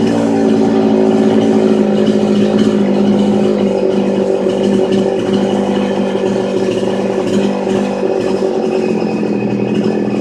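Chinese petrol chainsaw's two-stroke engine running warm at a fast idle, an even, steady note; the idle speed is set a little high.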